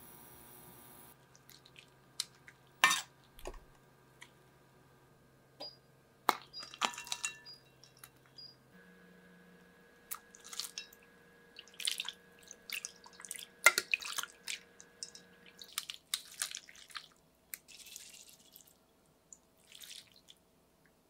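Straining noodles with a stainless mesh strainer: scattered sharp clinks of metal against a glass bowl of ice water and a pot, with dripping and splashing water. A faint steady hum runs underneath.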